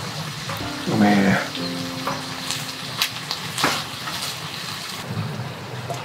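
Offal (horumon) sizzling in a frying pan on a wood stove's top, a steady frying hiss, with a few light clicks of chopsticks working in the pan past the middle. A brief voice-like sound comes about a second in.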